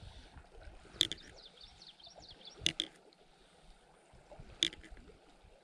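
Quiet creekside ambience: a faint hiss of flowing water and small birds chirping, with four sharp clicks spread through.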